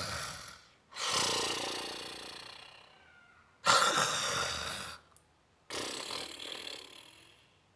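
Snoring: three long, breathy rasps, each fading away, standing for the dog that keeps on snoring.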